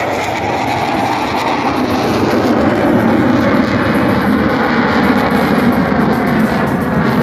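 Aircraft engine noise from a plane flying past, a loud rushing sound that grows over the first few seconds and then holds steady.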